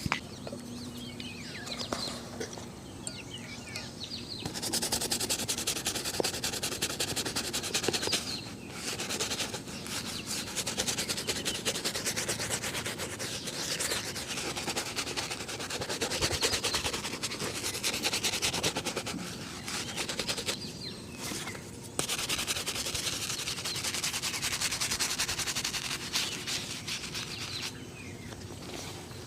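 Brisk rubbing of shoe leather during a shoe shine: rapid, continuous strokes start a few seconds in, break off briefly twice, and fall quieter near the end.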